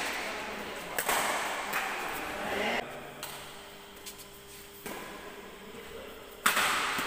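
Badminton rackets hitting a shuttlecock during a doubles rally: sharp cracks a few seconds apart, the loudest near the end, each ringing out in a large hall.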